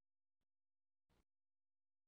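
Near silence, with only two very faint clicks, the second about a second in.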